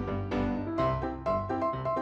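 Background music: a keyboard melody of struck, decaying notes at a brisk even pace over a bass line.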